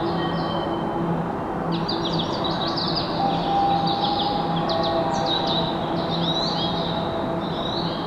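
Recorded bird chirping from a Japanese station's audio-guidance speaker: rapid high chirps in repeating phrases, with a short pause about a second in. Underneath runs a steady low hum.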